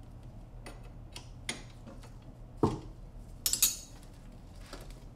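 Metal wrenches clinking and tapping on a power steering hard-line fitting as it is held and loosened: a handful of separate sharp metallic clinks, the loudest around the middle.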